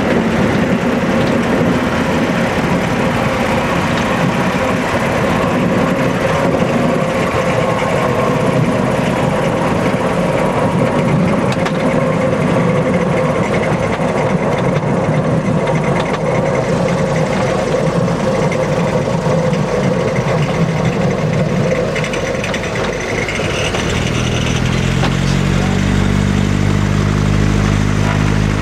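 Loud, steady cabin noise from a Britten-Norman BN-2 Islander's twin engines and propellers, heard from inside as the plane rolls along the runway. About three-quarters of the way through the noise dips briefly, then settles into a steadier engine drone with distinct humming tones.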